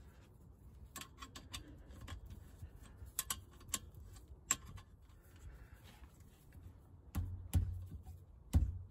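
A hex key clicking and ticking in the fill plug of a BMW E30 rear differential as the plug is screwed in and tightened by hand after refilling with oil, with a few louder, duller knocks near the end.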